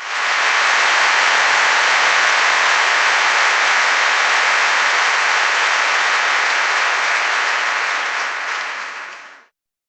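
Applause and cheering from a large crowd, a dense steady clatter of many hands clapping that starts abruptly, holds for about eight seconds, then fades out quickly.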